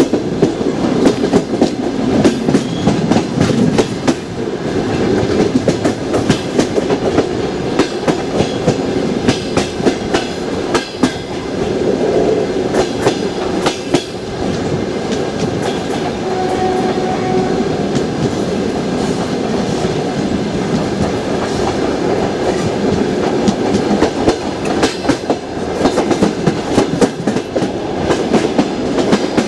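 Passenger train wheels clattering over rail joints: a repeated clickety-clack of sharp knocks over a steady rumble of the carriages.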